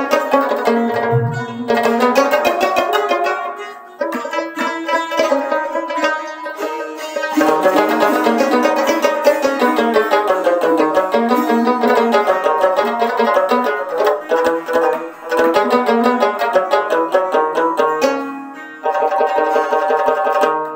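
Rabab and Pashto sitar playing an instrumental Pashto melody together in quick plucked runs, with tabla accompaniment. The playing eases briefly about four seconds in and again near the end.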